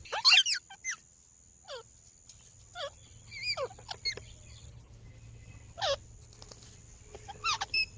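Rose-ringed parakeets (Indian ringneck parrots) giving short, high calls that slide downward in pitch. The loudest burst comes right at the start, followed by scattered single calls, with a couple more about six and seven and a half seconds in.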